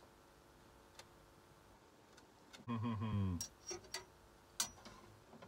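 A few light clicks and taps of a ruler and pencil being set down and moved on a steel plate while lines are marked out; several of the clicks ring briefly and high. A short hum of voice about three seconds in.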